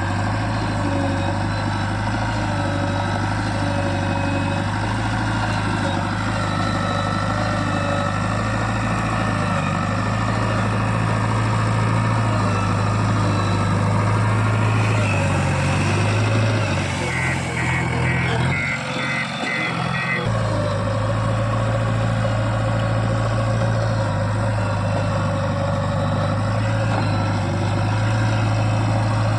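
Diesel engine of a JCB 3DX backhoe loader running steadily. About two-thirds through there is a quick run of short high beeps, and the engine note dips briefly before settling back.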